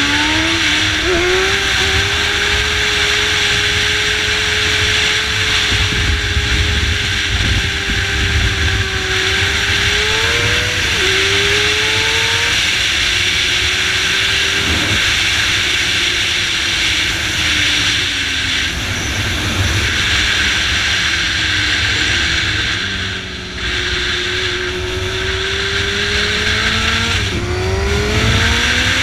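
Motorcycle engine at speed, revving up at the start and then holding a high, steady pitch, with gear changes about ten seconds in and near the end and a slowdown and pickup around twenty seconds. Heavy wind rush on the helmet-mounted microphone runs under it.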